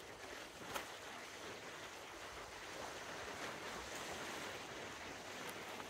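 Small waves washing steadily onto a stony shore, with a single click a little under a second in.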